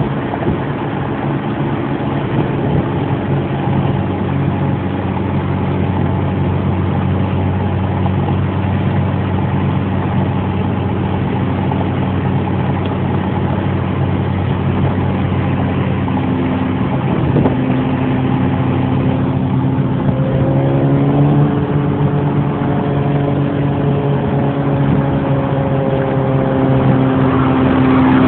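A car engine running steadily, its pitch stepping up about halfway through and again a few seconds later, then holding at the higher speed.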